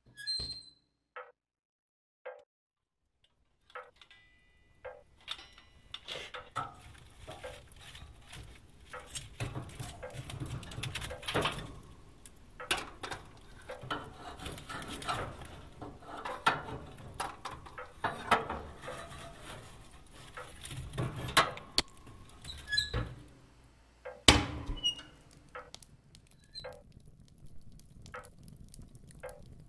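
Sharp single ticks about a second apart, then a dense crackling and pattering full of small clicks and knocks over a low rumble, with one loud knock about 24 seconds in.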